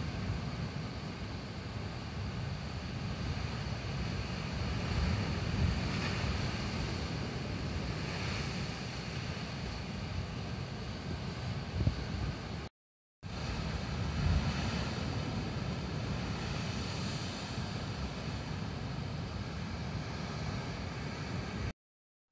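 Heavy surf surging and breaking against rocky sea cliffs, the wash swelling and easing in long waves, with wind rumbling on the microphone. The sound cuts out completely for a moment twice, about 13 seconds in and near the end.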